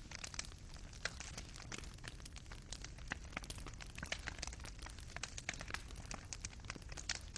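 Fire in a fireplace crackling, with many small irregular pops and snaps over a low, steady rumble.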